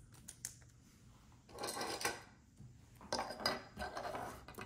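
Tabletop handling noise: a few light clicks, then two short spells of clattering and rustling, as trading cards and card supplies are moved and set out.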